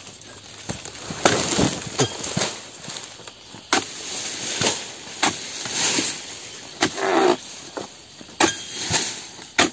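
Repeated sharp chopping strikes of a dodos, a chisel blade on a long pole, jabbed into the base of an oil palm's fronds and fruit-bunch stalks, about nine blows at irregular intervals with rustling between.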